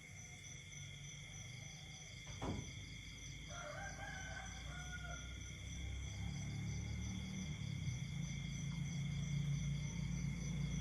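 Night insects trilling steadily at several high pitches, one of them pulsing. A sharp click comes about two seconds in, then a short animal call with two pitches, and a low hum builds through the second half.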